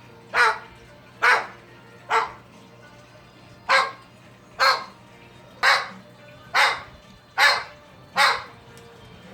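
Dog barking: nine short, sharp barks about a second apart, with a slightly longer pause after the third.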